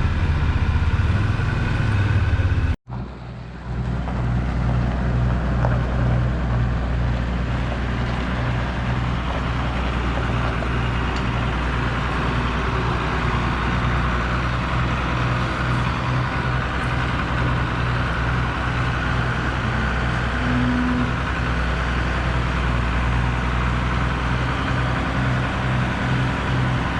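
Farm tractor or bale-wagon engine running steadily at an even speed, with a low pulsing throb. The sound cuts out for an instant about three seconds in and comes back unchanged.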